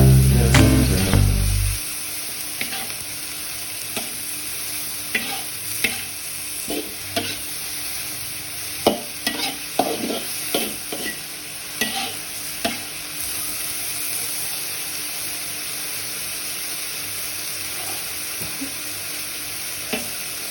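Papaya flowers stir-frying in a pan: a steady sizzle, with scattered clinks and scrapes of the spatula against the pan that come most often in the middle of the stretch.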